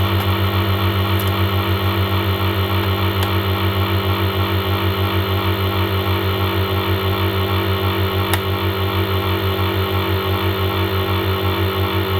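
A steady low mechanical hum that pulses about five times a second, with a few faint clicks over it.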